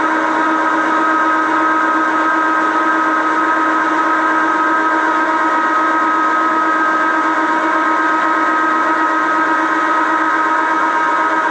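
1955 Meuser metal lathe running steadily, with a whine of several held tones over a mechanical hum.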